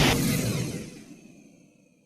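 The tail of a Kiryu (Mechagodzilla) monster sound effect: a loud, noisy sound cuts off just after the start, and its echoing ring fades away over about a second and a half into silence.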